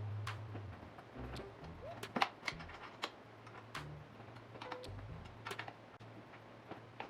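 Irregular light clicks and metallic taps of a hand tool turning and tightening screws into the gaming chair's metal frame.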